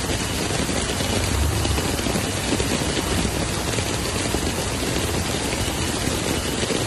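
Heavy rain and fast-flowing floodwater making a steady rushing noise over a street, with a low rumble underneath.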